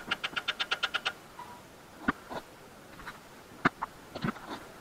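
Ratchet wrench clicking fast and evenly, about nine clicks a second, as the engine oil drain bolt is worked loose, stopping after about a second; a few single metallic clinks of the tool follow.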